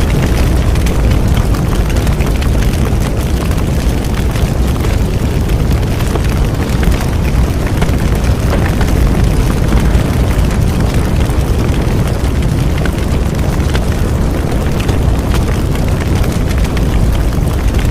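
Bonfire burning: a steady low rumble of flames with scattered small crackles and pops of burning wood.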